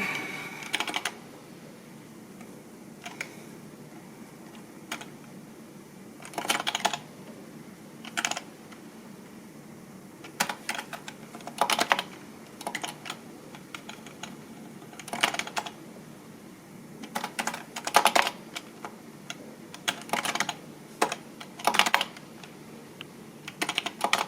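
Computer keyboard typing in short bursts of keystrokes separated by pauses of a second or two.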